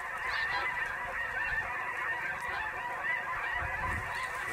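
A large flock of snow geese calling: many overlapping honks running together into one continuous din.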